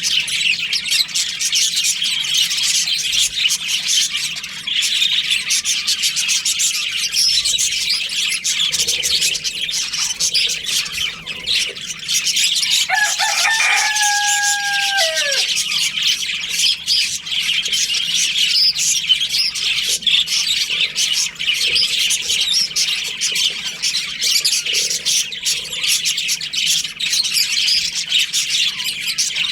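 A budgerigar colony chirping continuously in a dense, high chatter. About halfway through, a rooster crows once, a call of about three seconds that holds its pitch and then drops at the end.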